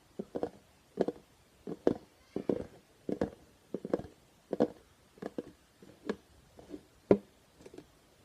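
Plastic Tupperware containers being tapped and handled: short hollow plastic knocks, irregular, roughly one or two a second, some in quick pairs.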